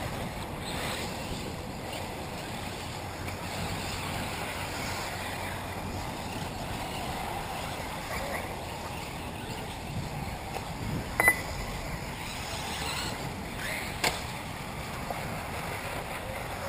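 Electric 1/8-scale RC off-road buggies running on a dirt track, a steady distant whir with wind on the microphone, broken by a few short sharp beeps.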